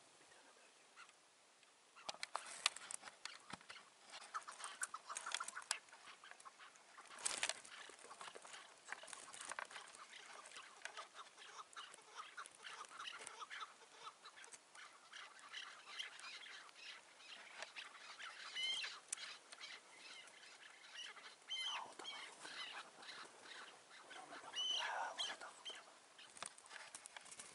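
Chukar partridges calling in a run of rapid, repeated short notes, with clearer chirping calls in the second half. A short, sharp noise stands out about seven seconds in.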